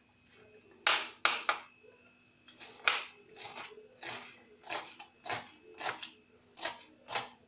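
Kitchen knife chopping a green onion on the counter: about fifteen short, crisp knocks, roughly two a second, starting about a second in.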